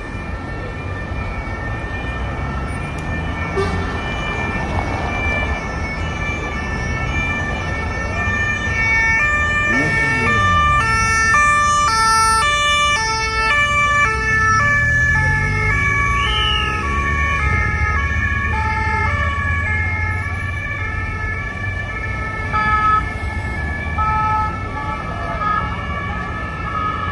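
Several police vehicles' two-tone sirens sounding together, each alternating between a high and a low note and loudest around the middle, over the noise of passing road traffic and motorcycle engines.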